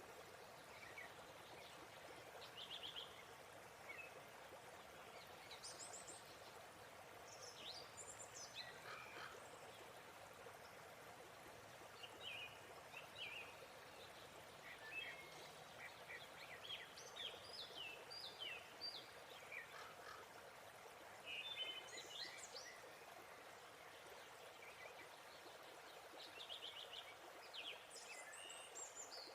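Faint, steady rush of a waterfall with many birds chirping over it, in short calls and trills.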